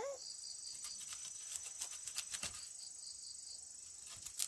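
Insects trilling steadily, high-pitched, with short runs of pulsed chirps, over several sharp knocks and cracks of a machete cutting hands of bananas off the stalk, the loudest two near the end.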